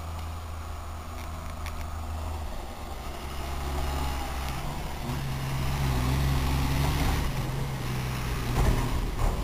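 A New Holland tractor engine pulling a loaded dump trailer, its steady running growing louder as it comes close and passes. A couple of sharp clunks near the end.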